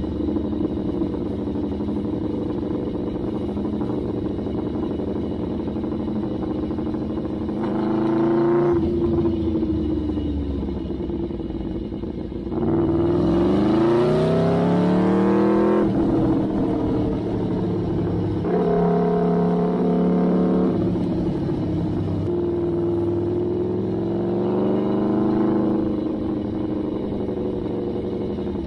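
Aprilia Tuono V4 1000 APRC's V4 engine through an Arrow GP race exhaust, heard on board while riding. It runs steadily at low revs, then opens up four times, the pitch climbing and dropping back each time. The strongest pull comes about halfway through.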